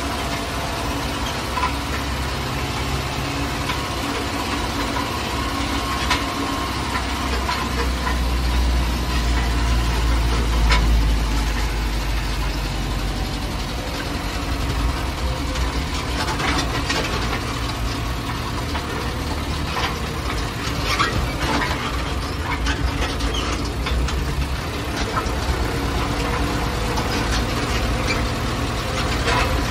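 Farm tractor's diesel engine running as it drives, heard from inside the cab, with a steady low rumble that grows louder about ten seconds in. Scattered clicks and rattles sound over it.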